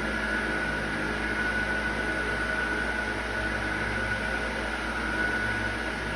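Steady machine hum and hiss with a thin, high, unchanging whine: a fan-type motor running.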